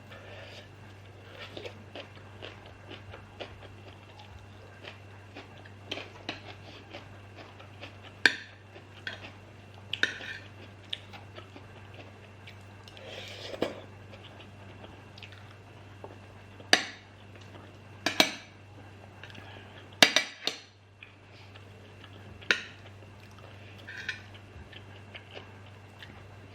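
Close-up eating sounds: chewing and mouth noises while eating curry and rice, with a scatter of sharp clinks of cutlery against a dish, about six of them loud, in the second half. A steady low hum sits underneath.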